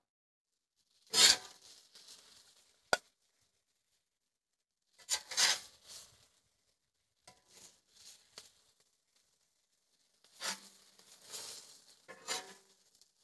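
Metal spatula scraping across a Blackstone griddle's steel cooktop in several short strokes, scooping up fried onions. There is one sharp tap about three seconds in.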